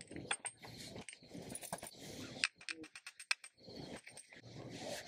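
Small clicks and clatter of plastic food containers, supplement jars and kibble in collapsible bowls being handled while dog meals are prepared, with a quick run of clicks about three seconds in.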